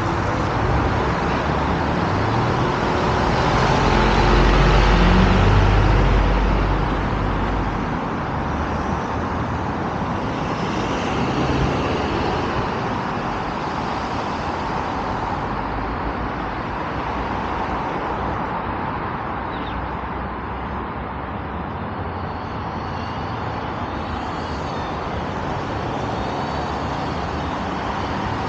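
Road traffic on a multi-lane road: cars passing steadily. One louder pass with a deep rumble comes about five seconds in.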